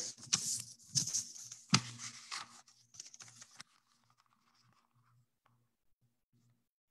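A sheet of printer paper being folded and creased by hand: rustling and crinkling with several sharp crackles for the first three to four seconds, then stopping, leaving only a faint low hum.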